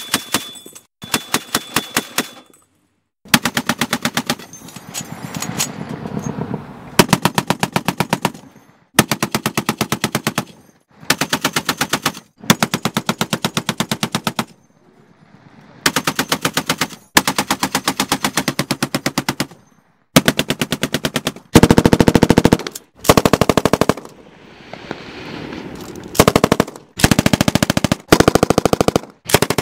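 Automatic gunfire in a long series of rapid bursts, each lasting one to three seconds, with short pauses between them.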